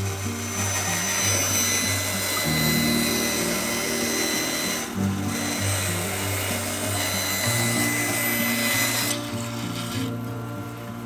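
Bandsaw cutting along a rough wooden board, a steady hiss of the blade in the wood. It breaks off briefly about five seconds in and stops about nine seconds in. Soft background music plays underneath.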